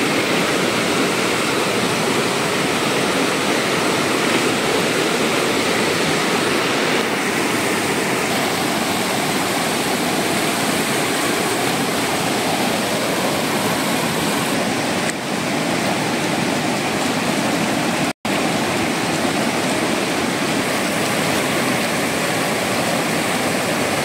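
Rushing river rapids: fast water pouring over and around rocks in a steady rush, broken once by a split-second dropout about three quarters of the way through.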